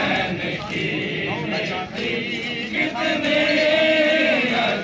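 Many men's voices chanting a noha, a Shia mourning lament, together in sung phrases, with a short break about two seconds in.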